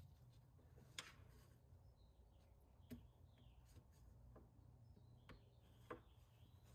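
Near silence: a steady low background hum with a few faint clicks, and faint bird chirps now and then.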